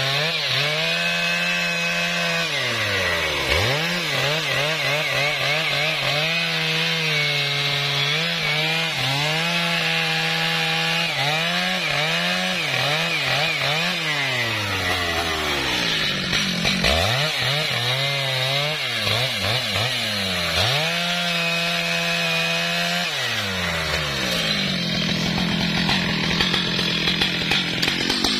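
Stihl MS 881 two-stroke chainsaw cutting through a large trembesi log at high revs. The engine pitch drops and climbs back several times as the chain works through the cut.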